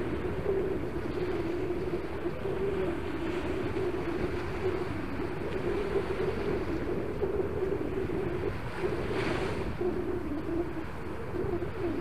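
Small waves breaking and washing up a sandy shore in a steady hiss of surf; one wash swells louder and brighter about nine seconds in.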